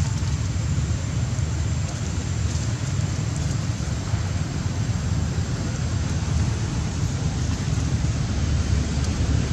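Steady low rumbling background noise with a faint hiss, with no single event standing out.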